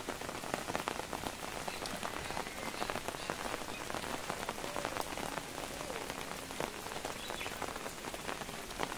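Steady monsoon rain falling on foliage and ground: a dense, even patter of many small drops.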